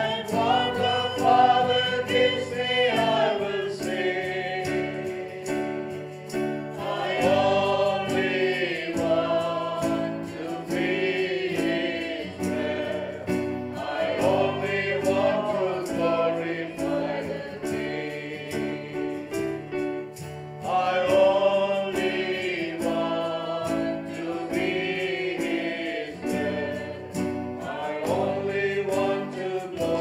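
A Christian worship song sung by a choir over held chords and a steady bass line, moving phrase by phrase.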